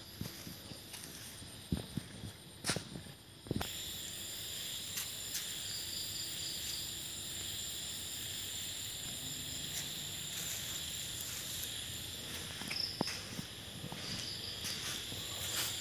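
Steady high-pitched chirring of insects, with a few sharp knocks in the first few seconds.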